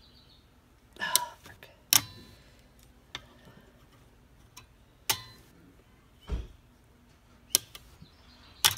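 Needle-nose pliers working the small steel springs off a pump motor's centrifugal switch: five sharp metallic clicks spaced a second or more apart, with one dull thump about six seconds in, the last click as a spring comes free near the end.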